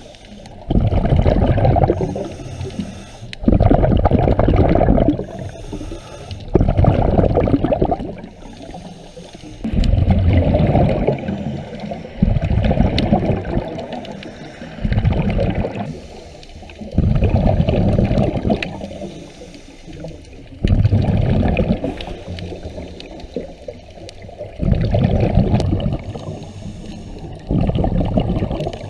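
A diver's scuba regulator heard underwater, exhaust bubbles gurgling out in a burst with each breath. The bursts come about every three seconds and last one to two seconds each, with quieter water noise between them.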